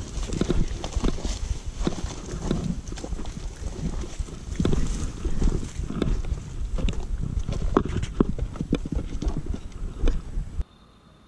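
Footsteps on a stony, rocky trail: irregular knocks and scrapes several times a second over a low rumble. The sound drops away suddenly shortly before the end.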